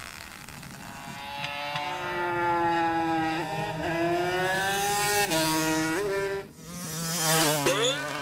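Vehicle engine accelerating along the road, its pitch climbing and stepping down through several gear changes. Near the end it passes by with a falling pitch.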